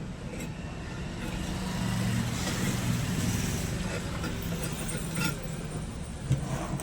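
A motor vehicle's engine running, growing louder about two seconds in and then easing off, with a couple of sharp knocks near the end.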